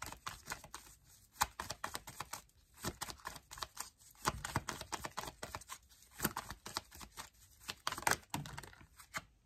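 Deck of tarot cards being shuffled by hand: a quick, irregular patter of light clicks as the cards slap and slide against each other.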